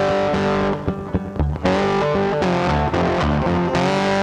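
Background music led by electric guitar, briefly thinning to a sparser passage about a second in.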